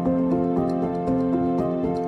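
Background instrumental music: a soft melody of sustained notes changing at a steady, even pace.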